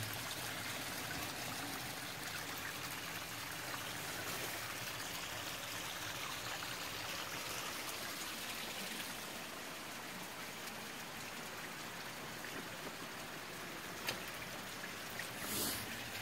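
Stream water running steadily over rocks, with a short click about 14 seconds in and a brief rustle near the end.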